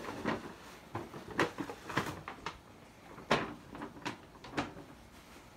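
Tissue paper crinkling and rustling in a run of short crackles as a wrapped gift is pulled from a gift bag and unwrapped; the loudest crackle comes a little over three seconds in.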